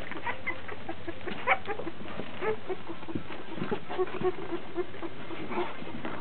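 Litter of two-week-old puppies squeaking and whimpering, many short high calls overlapping, with a run of quick, lower repeated squeaks in the middle.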